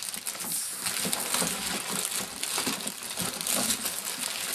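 Plastic packaging crinkling and rustling while the snowblower's handle is handled and pulled up, a dense run of small crackles.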